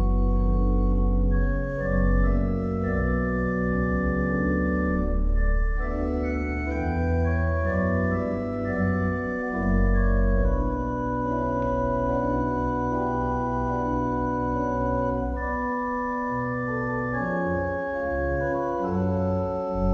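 Church organ playing slow, held chords over deep sustained pedal bass notes, the harmony changing every second or two.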